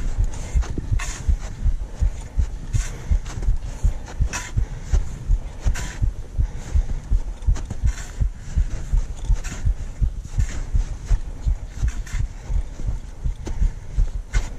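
A climber's footsteps on the way up the mountain: a steady train of low thumps several times a second, with a sharper crunch about every second.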